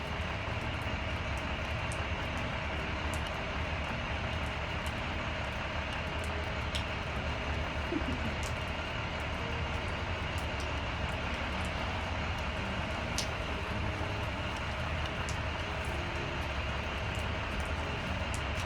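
A truck engine running steadily, a low rumble under an even hiss, with a few faint clicks.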